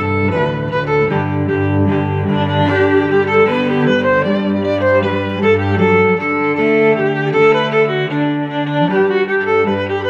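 Background music on bowed string instruments, violin and cello, playing held notes that change every second or so.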